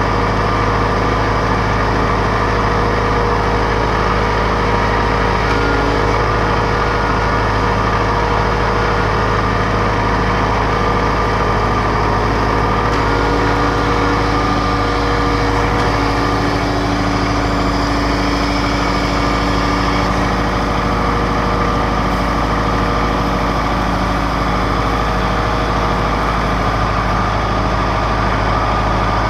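John Deere 4066R compact tractor's diesel engine running steadily at an even speed.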